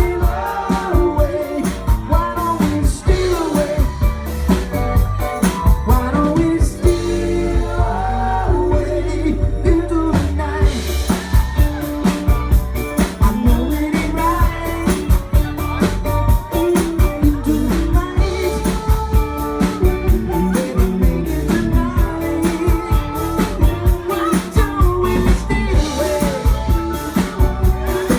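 Live rock band playing a soft-rock song: singing over drums, guitar and bass with a steady beat.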